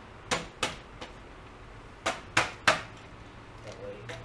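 Hollow knocks of white plastic (PVC) pipes and elbow fittings being tapped and shifted into line on a concrete floor: a few knocks near the start, then three louder ones in quick succession about two seconds in.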